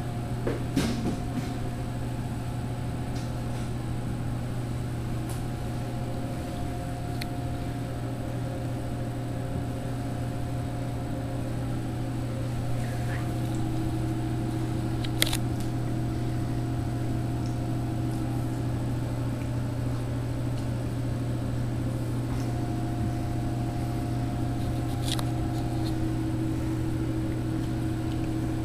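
Steady low electrical hum of running vending machines, their refrigeration and fans, with a few steady higher tones, one of which comes in about halfway. A few faint clicks of camera handling, the sharpest about halfway.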